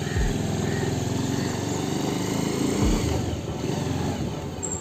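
Motorcycle engine running steadily as the bike rolls off at low speed.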